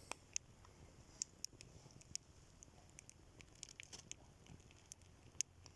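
Faint, irregular crackling and popping from a burning pile of matches with an egg frying over it: scattered sharp pops, a few louder than the rest, over a quiet background.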